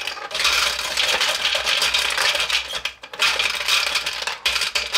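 Marbles rattling and clicking without pause as they are released from the plastic hopper and chute of a Marx Cat's Eye marble game and scooped up by hand, with short lulls about a quarter second in and around three seconds in.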